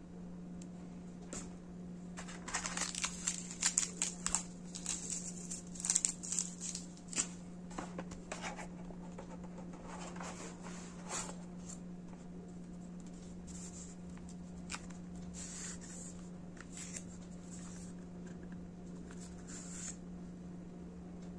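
Cardboard box packaging and paper inserts being handled and slid out by hand: rustling, scraping and light knocks, busiest in the first half, with a steady low hum underneath.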